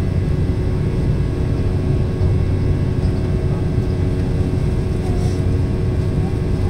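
Steady cabin noise of an Embraer ERJ190 jet in flight: the rushing airflow and constant hum of its two GE CF34-10E turbofan engines, heard from a window seat near the front of the cabin.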